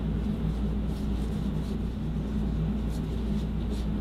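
Steady low background hum of the room, with a few faint short ticks.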